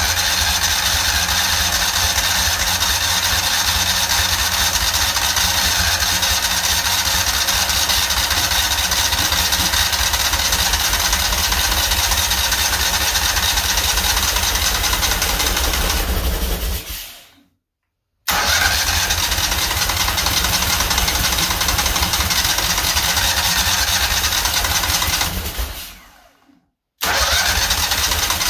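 Kohler CH18 air-cooled V-twin engine running steadily after a head gasket replacement. The sound fades to silence twice, about two-thirds of the way in and again near the end, each time coming straight back at full level.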